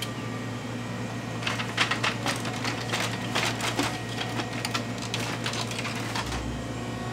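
Quick, irregular plastic clicks and knocks from an HP LaserJet 2015 laser printer's casing and parts being handled. They are densest between about one and a half and five seconds in, over a steady low hum.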